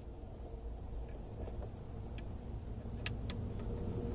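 Two small clicks about three seconds in, as a probe-kit test lead is moved over to a new terminal on the power-mirror connector, over a faint steady low hum.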